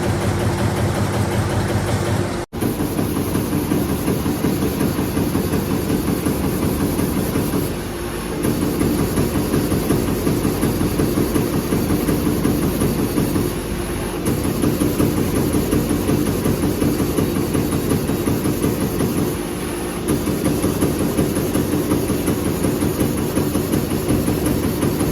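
AMADA EMZ 3510 NT electric turret punch press running, a rapid regular stream of punch strokes over a steady machine hum, easing briefly about every six seconds.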